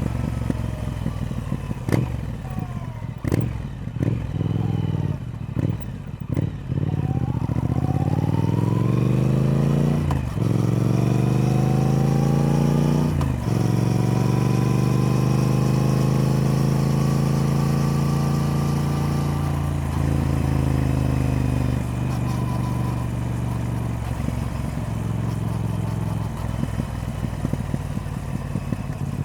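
Triumph Speed Twin's parallel-twin engine under way. The note is choppy with several short breaks in the first seven seconds. It then rises in pitch and drops back at two gear changes, about ten and thirteen seconds in, holds steady at cruise, and eases off to a lower, rougher note in the last several seconds.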